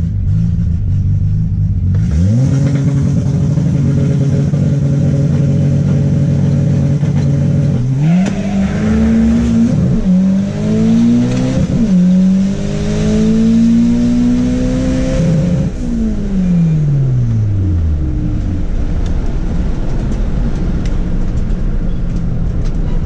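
Turbocharged Volkswagen Gol drag car's engine, heard from inside the cabin, making a full quarter-mile-style drag pass: it rumbles on the line, revs up about two seconds in and holds steady, then launches about eight seconds in with the revs climbing through two quick gear changes. Near sixteen seconds the driver lifts off and the revs fall away in a long sweep as the car slows.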